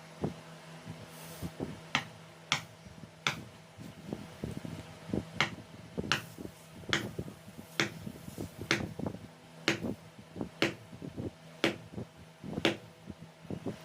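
Light hand-hammer taps, about one a second and unevenly spaced, with softer knocks between them, over a faint steady hum.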